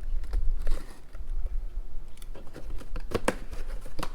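Cardboard shipping box being opened by hand: packing tape and flaps cut and pulled, with scrapes and a few sharp clicks.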